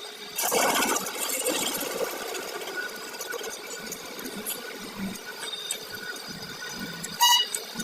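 A rapid mechanical rattle of a small tool or machine working, loudest just after it starts and going on more quietly, with a short sharp metallic squeal near the end.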